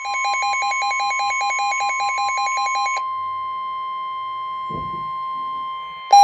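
Weather radio sounding a severe-weather alert: a steady 1050 Hz warning alarm tone, with an electronic alarm beeping about four times a second over it for the first three seconds. The beeping stops and the steady tone carries on alone, a little quieter. Near the end a much louder pulsed beeping starts.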